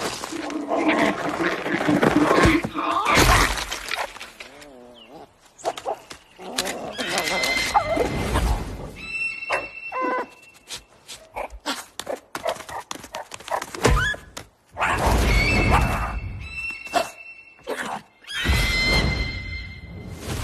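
Film soundtrack of a large eggshell being knocked about, cracking and breaking, with thuds and animal calls over music.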